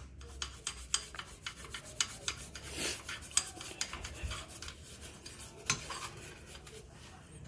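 Toothbrush scrubbing car rear brake parts wet with degreaser: quick, irregular scratchy strokes of bristles on metal. The grime and rust being brushed off are taken to cause the brakes' squeak.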